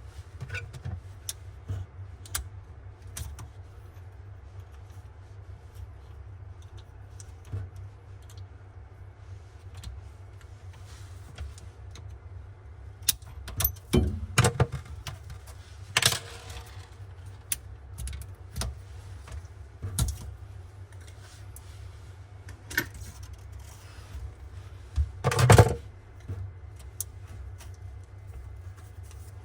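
Metal tools and fittings clinking, tapping and rattling during kitchen faucet replacement work, with a few louder knocks about halfway through and near the end, over a low steady hum.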